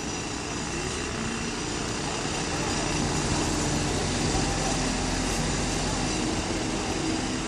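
Heavy diesel machinery running steadily under load, a mobile crane hoisting a concrete block, getting a little louder from about three seconds in. Faint voices sound in the background.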